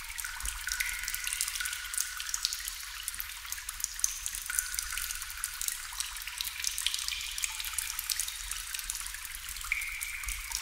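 Water dripping into water: a continuous, irregular patter of many small drops, with short pitched plinks among them.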